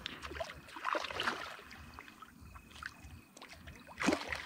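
Irregular water splashes and sloshing: a hooked mirror carp thrashing at the surface.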